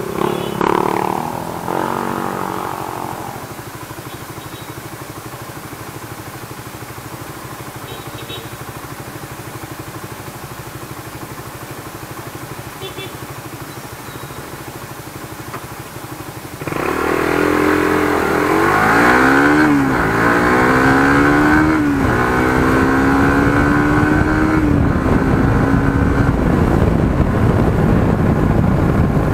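Suzuki GSX-R150's single-cylinder four-stroke engine idling steadily, then revving hard as the motorcycle pulls away about two-thirds of the way in. Its pitch climbs and falls back three times as it shifts up through the gears, then it settles into a steady run.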